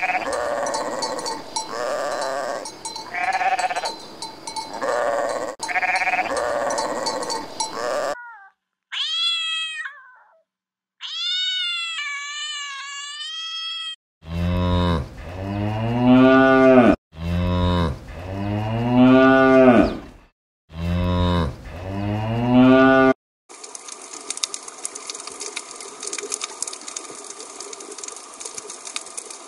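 Farm animals calling in turn. First comes overlapping bleating from a flock, then a few high, wavering bleats, then cattle mooing four times in long, low calls. Near the end a steady hiss takes over.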